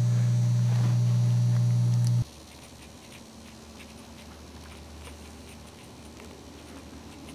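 Loud steady electrical mains hum on the recording, which cuts off suddenly about two seconds in. After that there are only faint soft rustles and small clicks.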